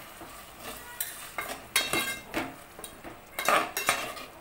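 A spoon stirring and scraping sauces and onion masala around a metal cooking pan, in irregular scrapes and knocks, the loudest a little past three seconds in.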